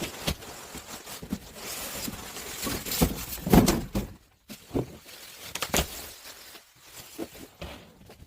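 Irregular knocks, clicks and light clattering of hard parts being handled, with rustling in between; the loudest knocks come about three seconds in and again near six seconds.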